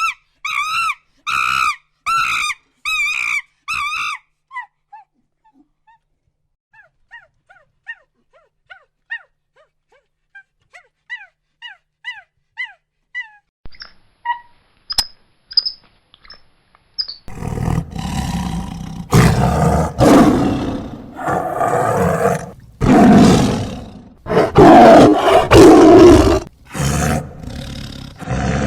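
A repeated wavering high-pitched call for the first few seconds, then faint scattered chirps, then from about 17 s in a lion roaring loudly in a series of long roars.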